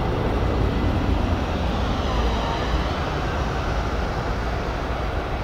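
Jet airliner engines running, a steady rumble heavy in the low end with a faint whine above it about halfway through.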